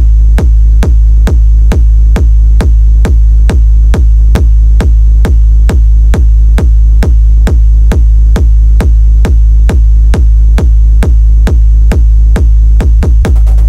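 Techno track built on a deep, loud kick drum beating steadily about twice a second, with a thin steady high tone above it. Near the end the kicks quicken into a short roll.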